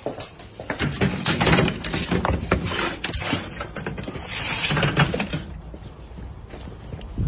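Footsteps and rustling handling noise from someone walking along a paved garden path, in two louder stretches.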